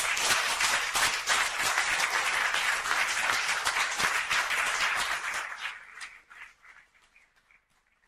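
Audience applauding, a dense patter of many hands clapping that thins out and dies away about six or seven seconds in.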